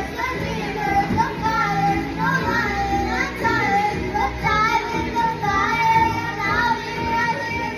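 A child singing a melody over backing music.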